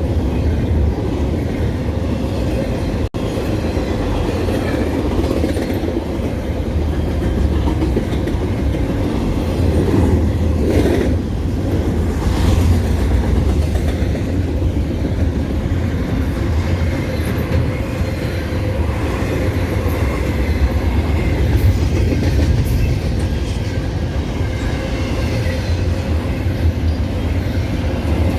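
CPKC freight train passing, a steady low rumble of wheels and cars on the rails, with a brief dropout about three seconds in.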